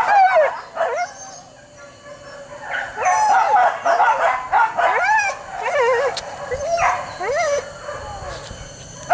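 A pack of hunting dogs baying, yelping and howling on the chase during a wild boar hunt. Several voices overlap in repeated rising-and-falling cries, easing off briefly about two seconds in and again near the end.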